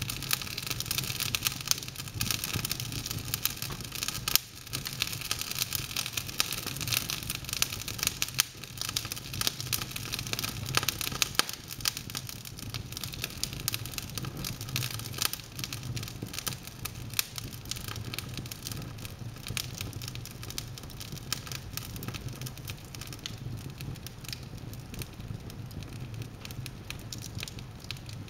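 Wood logs burning in an open fireplace, crackling and popping steadily over the low rush of the flames. The crackles come thickly in the first half and thin out towards the end.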